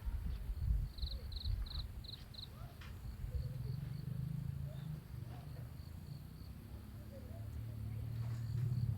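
Crickets chirping outdoors: a faint steady high trill, with a short run of about six louder chirps a second or so in. A louder low rumble runs beneath it.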